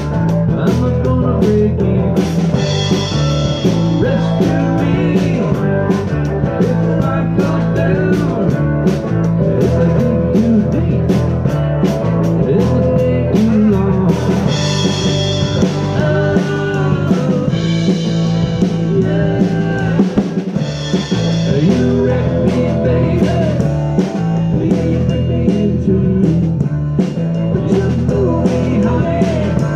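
Live rock trio playing an instrumental passage with no vocals: guitar lines over bass guitar and a drum kit keeping a steady beat with cymbals.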